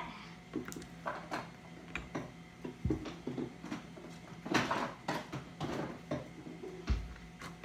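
Scattered light clicks and knocks of small plastic containers and lids being handled and set down on a wooden table, a few landing with a duller thump.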